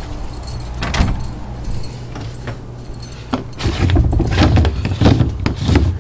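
Metallic jangling and clatter: a sharp click about a second in, then from about halfway a run of irregular rattles and knocks, over a steady low hum.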